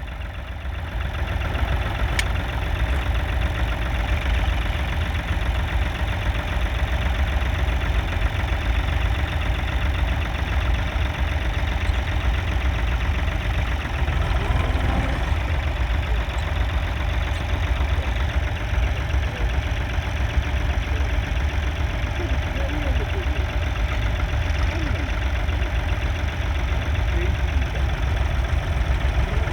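Three-cylinder 2.7-litre diesel engine of a 1969 David Brown 780 tractor running steadily.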